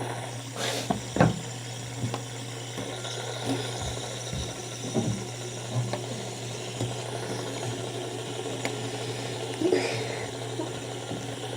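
Fidget spinners whirring with a steady low hum, with a few soft clicks and taps as spinners are set on top of one another.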